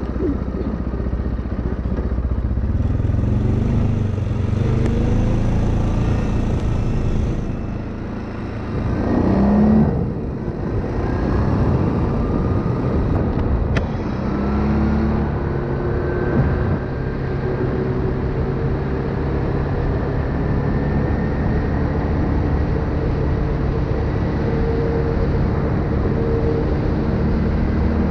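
Linhai 500 ATV's single-cylinder four-stroke engine running while riding along. The engine eases off about eight seconds in, then picks up again with a rise in pitch, and runs steadily after that.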